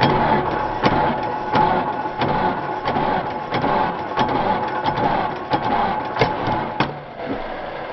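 Starter motor cranking a Kohler diesel engine through its flywheel ring gear: a steady mechanical whir with a sharp click about every two-thirds of a second, the pitch falling as it winds down near the end.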